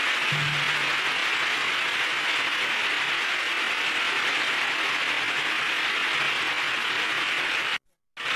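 Concert audience applauding steadily, a dense even clapping. It cuts out abruptly for a moment near the end.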